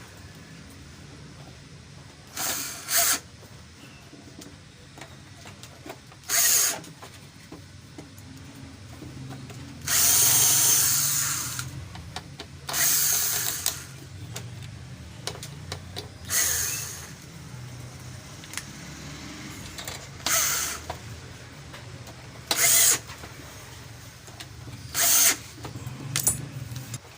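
A small hand-held power tool run in short bursts, switched on and off about ten times, over a steady low hum.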